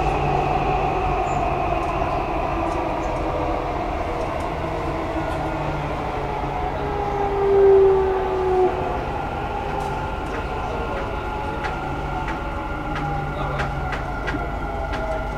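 Dubai Metro train running between stations, heard from inside the car: a steady rumble with the motor tones slowly falling in pitch. About halfway through, a short tone rises briefly above the noise and is the loudest moment.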